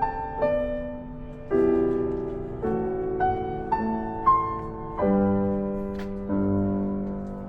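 Background music: a slow piano piece, notes and chords struck about once a second and left to fade.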